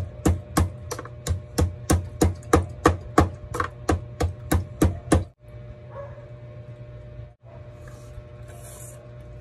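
The base of a glass bottle pounding green onions, ginger and chili in a ceramic bowl, a steady run of about sixteen strikes at roughly three a second, stopping about five seconds in.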